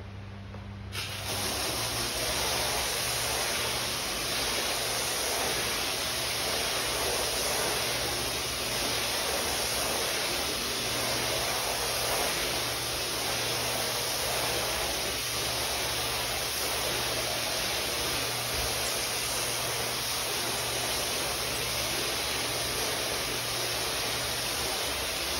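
Water spraying hard from a hose wand onto an area rug, flooding it: a steady hiss of spray that comes up about a second in and holds. A steady low hum runs underneath.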